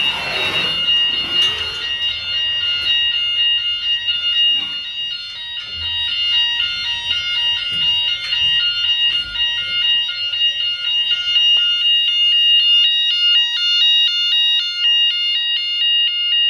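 Shipboard electronic alarm sounding continuously: a piercing steady high tone with a pattern of lower and higher beeps stepping on and off over it, growing busier in the last few seconds. A brief rush of noise near the start.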